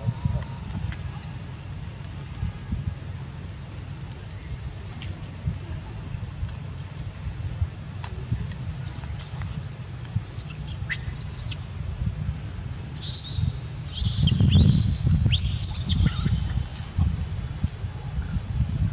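Young long-tailed macaques squealing during a scuffle: a string of short, high-pitched squeals, each rising and then falling, starting about halfway through and loudest a few seconds later.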